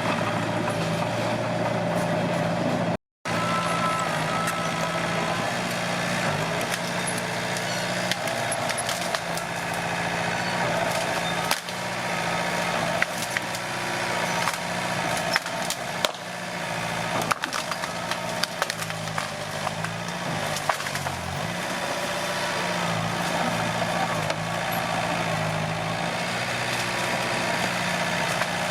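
Komatsu D21P bulldozer's diesel engine running steadily under load, with wood cracking and splintering as trees and branches are pushed over. The sound drops out briefly about three seconds in.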